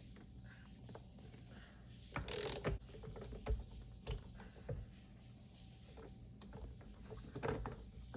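Socket wrench with a 22 mm socket on the steering-wheel nut: a short metallic rasp about two seconds in, then scattered clicks and clinks of the tool working the nut.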